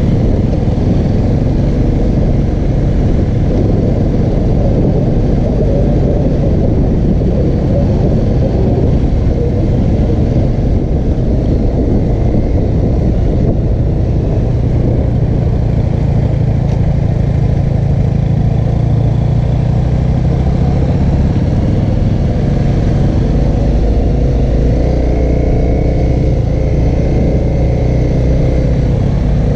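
2014 Honda CRF250L's single-cylinder four-stroke engine running steadily under way at an easy trail-riding pace.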